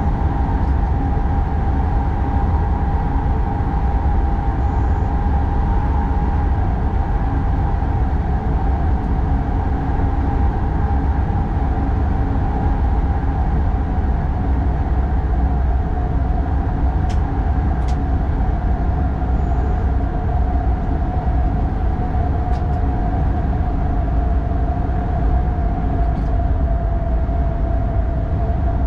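X40 electric multiple unit running along the line, heard from the driver's cab: a steady low rumble under a constant whine that drifts slightly lower in the second half, with a few brief clicks.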